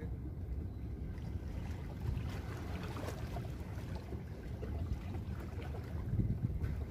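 Steady low rumble of wind on the microphone, with faint scattered ticks.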